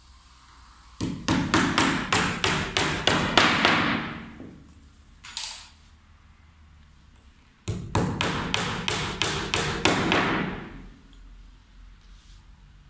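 Small hammer striking, tacking small wooden squares down onto an MDF board: two runs of quick, even blows, about three a second, with a pause of about three seconds between them.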